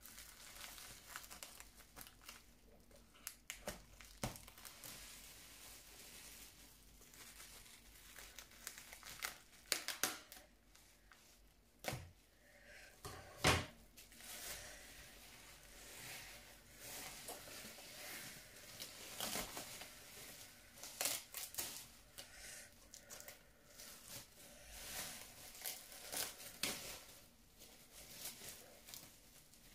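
Bubble wrap crinkling and rustling as it is cut open with scissors and pulled off a package, with irregular crackles and a few sharp snaps, the loudest just before and after halfway.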